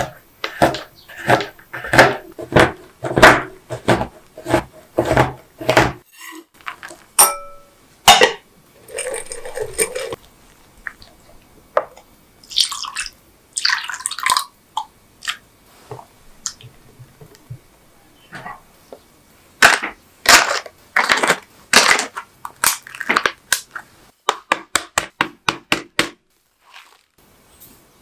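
A knife chopping a bar of dark chocolate on a cutting board, in sharp cuts about two a second for the first six seconds. After that come kitchen handling sounds: milk poured into melted chocolate and a wire whisk stirring in a glass bowl, among scattered knocks and a quick run of clicks near the end.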